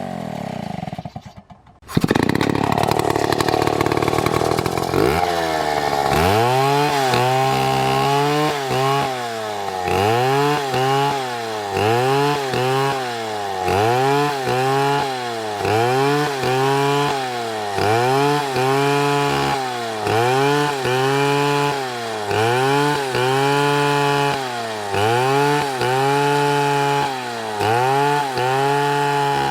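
Chainsaw engine running at high speed under load while cutting a dead palm trunk, its pitch dipping and recovering about once every second and a quarter as the chain bites and frees. There is a brief drop in sound about a second in.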